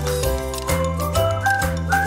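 Background music: a light tune whose melody steps from note to note over a bass line, with a steady beat.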